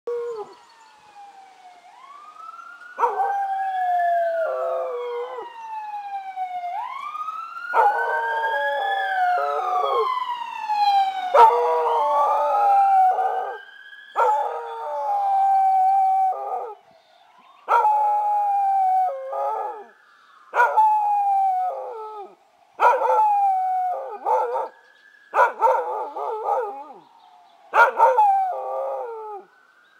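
Keeshond howling at a passing emergency-vehicle siren: the siren wails up and down and fades away after about twenty seconds, while the dog keeps up long, falling howls that get shorter, with brief gaps, near the end.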